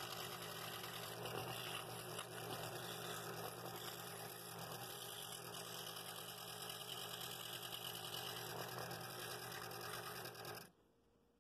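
Scroll saw running steadily, its blade cutting walnut fretwork with a low hum. The sound stops abruptly near the end.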